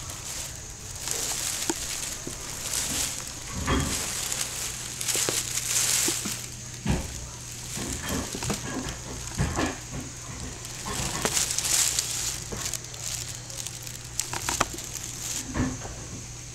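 Thin plastic grocery bag crinkling and rustling in repeated bursts as a cat moves about inside it, with a few dull thumps in between.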